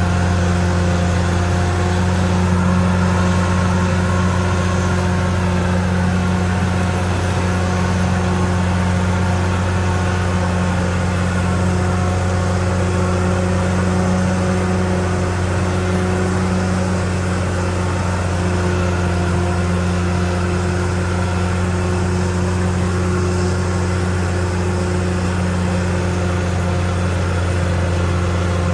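CAT D6R XL bulldozer's diesel engine running steadily under work, a loud, even drone with little change in pitch.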